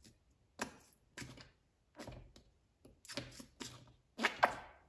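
A plastic bottle of red acrylic paint being handled and squeezed out onto a palette: a string of short, irregular clicks and scrapes, the loudest about four seconds in.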